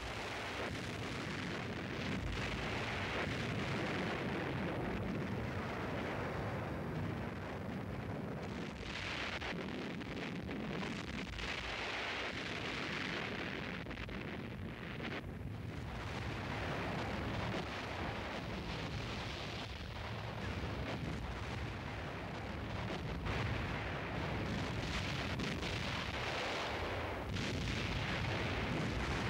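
A continuous rumble of explosions and artillery fire, dense and unbroken, swelling and easing every few seconds.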